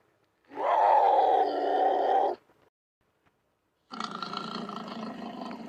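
Leopard calling: two long, rough calls, the first about two seconds long and louder, the second starting about four seconds in and quieter.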